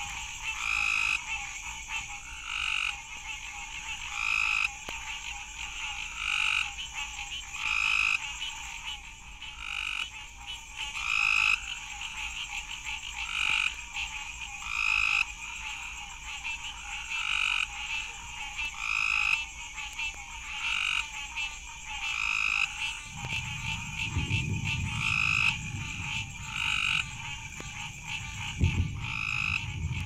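Chorus of at least three species of tree frogs calling during a thunderstorm, one call repeating about every two seconds, heard as a field recording played back from a vinyl record. A low rumble of thunder comes in about three-quarters of the way through.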